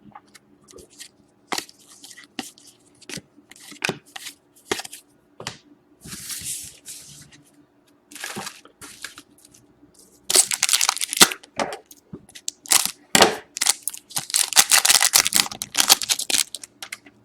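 Plastic hockey card pack wrappers crinkling and tearing as packs are opened and cards are handled. Scattered short rustles and crackles, with louder crinkling about ten seconds in and a longer stretch near the end.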